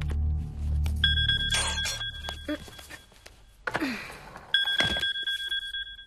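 Mobile phone ringing with an electronic ringtone of two steady high tones, in two spells of about a second and a half with a pause between. In the pause, a short clatter and thunk as a suitcase is handled, and soft music fades out near the start.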